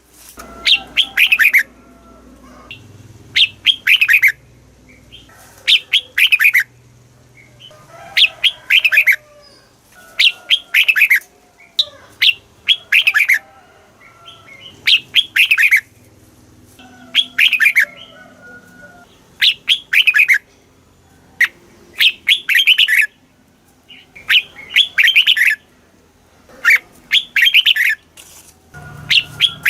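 Red-whiskered bulbul singing: short, loud phrases of quick falling whistled notes, repeated about every two seconds, with softer chattering calls between them.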